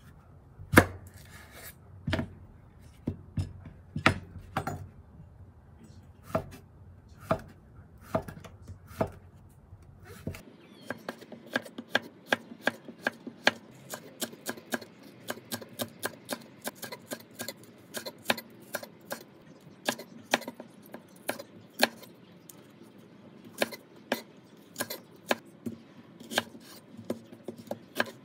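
Chef's knife chopping zucchini on a wooden cutting board: sharp knocks of the blade through the vegetable onto the board. They come slowly and singly at first, then about ten seconds in turn to quicker, steady chopping.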